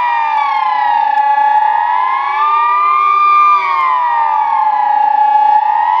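Swiss civil-defence sirens sounding the 'general alarm' test signal: a steady wail that rises and falls about once every four seconds. Several sirens across the city overlap at different pitches.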